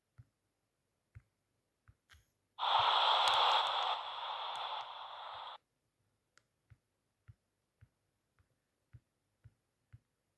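A burst of hissing noise about three seconds long that drops in level partway through and cuts off suddenly: a sound effect played back in a video editor. Faint single clicks come before and after it.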